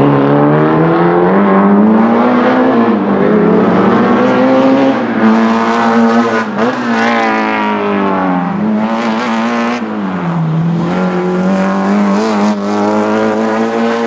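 Alfa Romeo Giulia GTAm Group 5 race car's 2.0-litre four-cylinder engine driven flat out, its note rising under throttle and dipping several times as it lifts and shifts, with some tyre squeal as the car slides.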